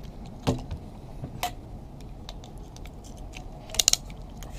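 A few sharp clicks and snaps from small plastic component boxes being handled and pried at over a circuit board, ending in three quick clicks close together.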